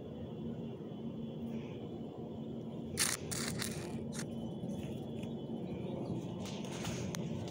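Phone handling noise: a few short scratchy rustles about three seconds in and again near the end, over a steady low hum.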